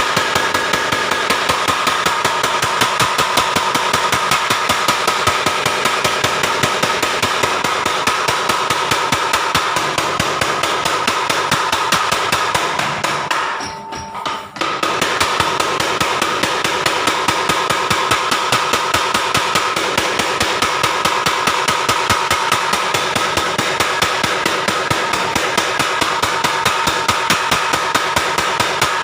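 Blacksmith's mechanical power hammer running, its ram striking in a rapid, steady rhythm with a metallic ring. About halfway through the blows stop briefly, then the hammer starts up again.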